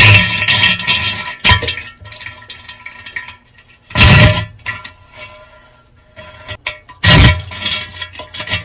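Pooping sound effect: four loud, sudden splashy noise bursts, the first right at the start, then about a second and a half, four and seven seconds in, over steady background music.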